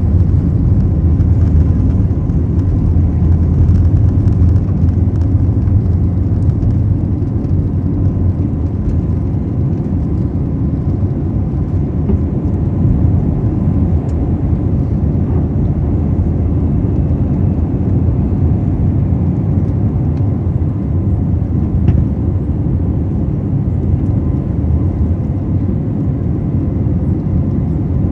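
Airbus A320neo's engines at takeoff power heard from inside the cabin: a loud, steady low rumble with a faint whine through the takeoff roll, liftoff and initial climb, easing slightly after about eight seconds. A brief click about three-quarters of the way through.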